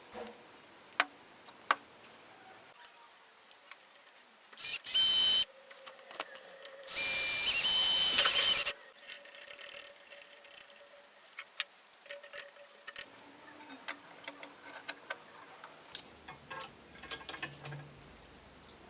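Scattered clicks and taps of small parts being handled, broken twice by a small handheld power tool switched on in short bursts: once for under a second, then for about two seconds, each with a steady high whine.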